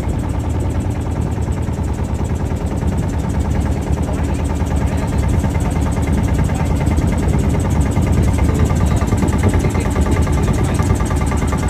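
Boat engine running steadily at a low, even throb.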